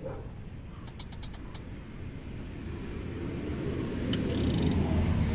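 Handling and tool noise as the engine is turned by hand to line up the flywheel locking pin: a low rumble that grows louder, with a quick run of small metallic clicks near the end.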